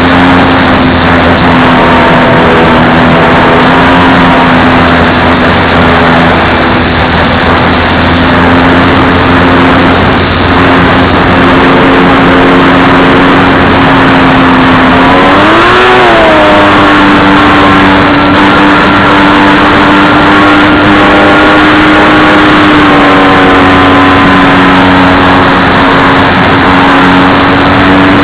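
Radio-controlled model plane's motor and propeller running steadily and loudly. About halfway through the pitch swoops up and back down, then settles a little higher than before.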